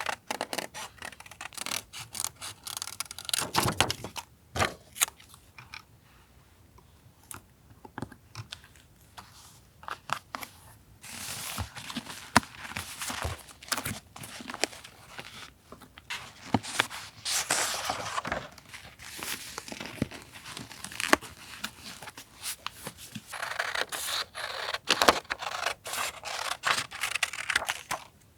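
Paper being torn and handled for a journal collage: long rustling, tearing strokes and scattered sharp clicks and snips. There is a quieter pause about six to ten seconds in.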